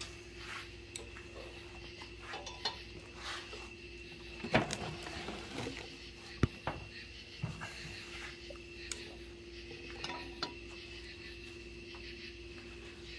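Metal clinks and knocks of an adjustable wrench working the forcing screw of a pitman arm puller clamped on a steel wheel hub, pressing out a wheel stud. The two sharpest knocks come about four and a half and six and a half seconds in, over a faint steady hum.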